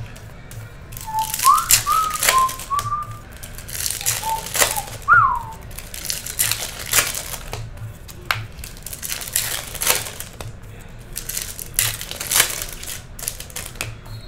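Foil wrappers of Topps Chrome baseball card packs crinkling and tearing, with cards riffled and shuffled in the hands, in a string of short rustles and scrapes. In the first few seconds someone whistles a handful of short notes, several of them sliding upward.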